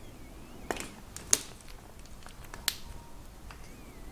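Small plastic wiring connectors on a Yamaha PW-X e-bike motor's cable harness being worked apart by hand: a few sharp clicks and ticks, the loudest about a second and a half in.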